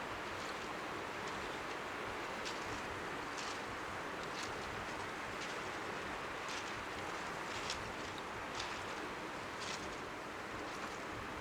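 Strong sea wind on the microphone with faint waves lapping on the shore beneath it, a steady rushing hiss. Faint short crisp ticks come about once a second over it.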